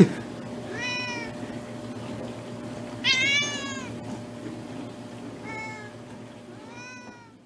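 A domestic cat meowing four times, each meow rising and falling in pitch, the second one, about three seconds in, the longest and loudest. A sharp knock right at the start, and a low steady hum underneath.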